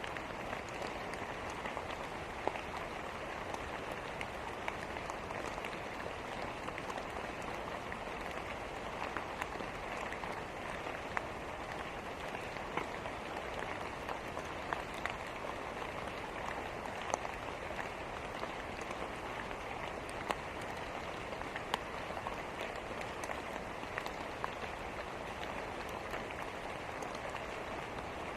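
Steady rain with a fireplace wood fire: an even rushing hiss, with scattered sharp crackles and pops every second or two.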